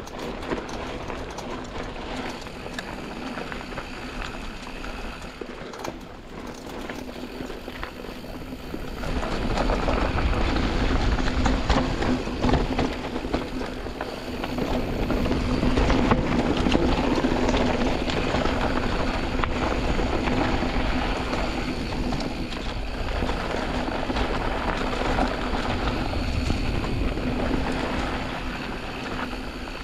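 Canyon Spectral AL 6.0 mountain bike riding down a dirt trail: tyres rolling over loose ground with constant rattling and clicking of the bike, and wind on the chest-mounted camera. It gets louder about nine seconds in and stays louder.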